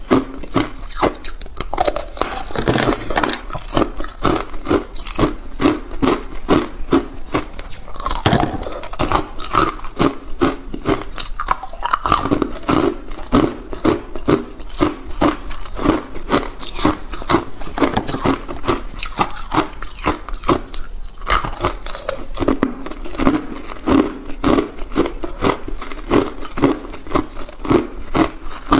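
Hard clear ice being bitten and chewed: a dense, continuous run of crisp crunches, several a second.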